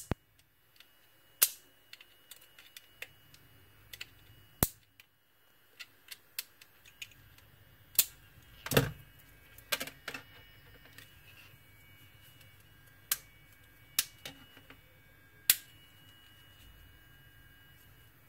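Scattered sharp clicks and snaps of a metal tweezer tool prying at and handling the small plastic parts of an opened beard trimmer, about a dozen at uneven intervals. Underneath is a faint steady hum, from the trimmer's motor still running because it cannot be switched off.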